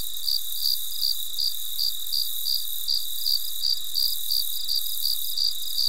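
Crickets chirping in an even, unbroken rhythm, about three high chirps a second, over a steady high-pitched trill and hiss.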